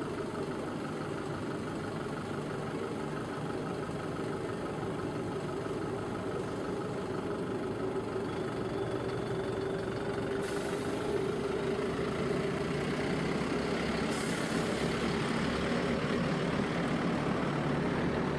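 A steady mechanical drone, engine-like heavy machinery running, growing gradually louder through the second half.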